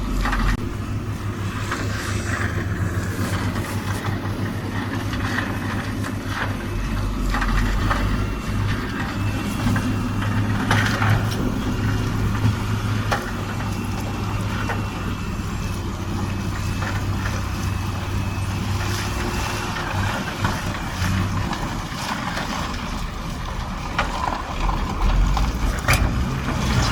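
Heavy-machinery diesel engine running steadily under load, with scattered knocks and clanks throughout.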